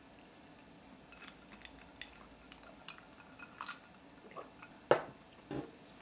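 A glass mug of iced tea handled on a table: scattered light clicks, then a sharp knock of glass about five seconds in and a softer one just after.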